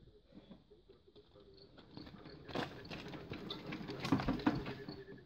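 Starting crank of a 1961 Zetor 25's two-cylinder diesel clattering and clanking as the engine is turned over by hand. The crank keeps jumping out, which the owner puts down to a nut that needs repair. The knocking builds from about two seconds in and is loudest near the end.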